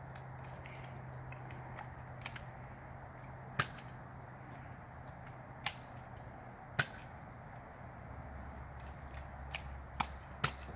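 Scattered sharp snaps from Nerf blasters and their foam darts: about six loud ones at irregular intervals, with fainter ones between.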